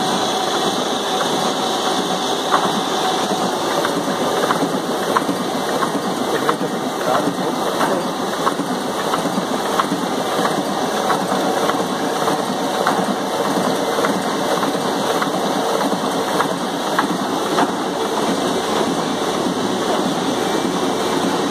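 Roland 200 two-colour sheetfed offset press running: a steady, dense mechanical clatter with faint ticks throughout as sheets are fed, printed and delivered.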